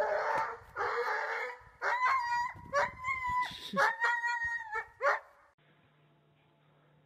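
A dog vocalizing: rough, barking bursts at first, then a run of high, held whining cries. Five or six seconds in these stop and only a faint low hum remains.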